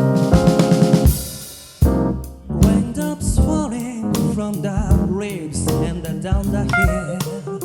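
A band playing live: electric piano chords over drums, which die away briefly about two seconds in. The full band then comes back in with drums and a lead melody that bends up and down.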